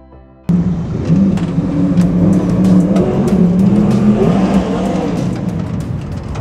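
Small-block V8 of a 360 wingless sprint car running at low revs as it rolls into the pits, its pitch wavering, with many sharp clicks and rattles over it. It cuts in abruptly about half a second in.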